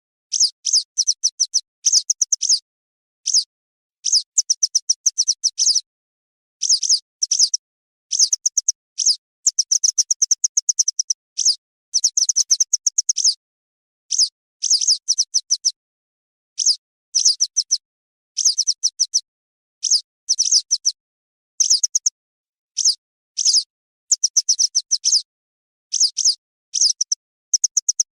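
Western yellow wagtail calling: short bursts of rapid, high-pitched chirping notes, repeated over and over with brief silent gaps between bursts.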